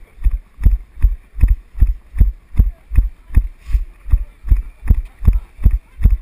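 Steady rhythm of low thuds from a body-worn action camera jolting with each running footfall, about two and a half strides a second.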